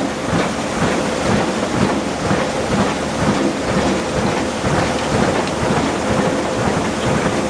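Water and gravel pouring through a gold-washing sluice and discharge chute: a dense, steady rushing rattle, with a steady machine hum beneath it.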